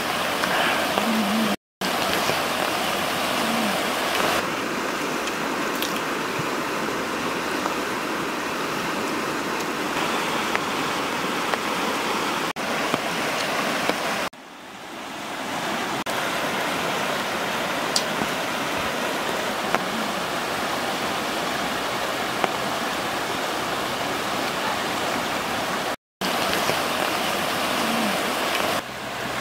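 Steady rush of fast-flowing river water, breaking off to silence twice and dipping once about halfway before swelling back.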